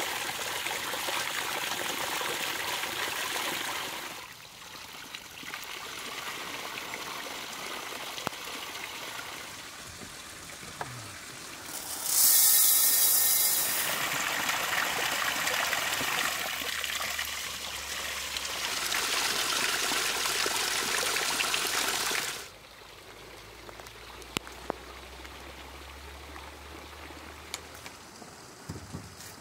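Running and pouring water, in stretches that start and stop abruptly, loudest for a couple of seconds about twelve seconds in, then giving way to a quieter background with a few light clicks.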